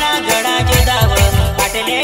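Timli folk dance music: a fast, steady drum beat under a melody line.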